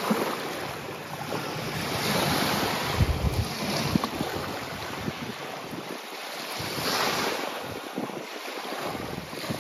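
Small lake waves lapping and breaking on a sandy shore, swelling and ebbing twice, with wind buffeting the microphone about three seconds in.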